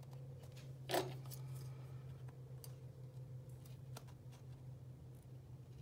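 Paper and chipboard being handled, with a few light clicks as a small metal hand-held hole punch is worked onto the paper; the sharpest click comes about a second in. A steady low hum runs underneath.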